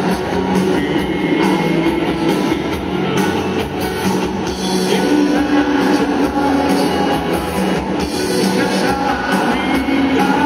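Pop-rock band playing live, with drums, guitars and a held singing line over the full band, heard as a loud concert-hall recording.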